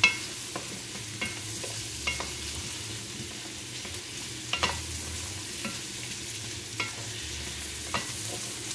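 Wooden spoon stirring lobster tails and baby potatoes sautéing in butter in a stainless steel pot: a steady low sizzle with occasional sharp knocks of the spoon against the pot, about seven of them.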